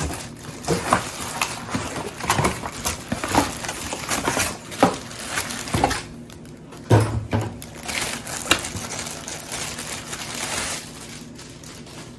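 Vacuum parts and packaging being handled: scattered knocks and clicks of hard plastic pieces with rustling, thinning out near the end.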